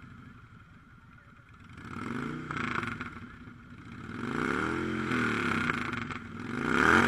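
Motorcycle engine revved up and let back down three times, starting about two seconds in, each rev a rise and fall in pitch; the last rev is the loudest.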